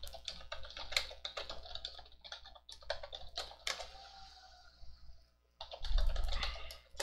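Typing on a computer keyboard: a run of quick, irregular key clicks, with a louder, heavier stretch of clatter about six seconds in.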